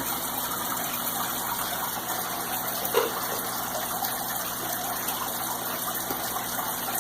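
Steady rushing background noise with a low hum, and a single faint click about three seconds in.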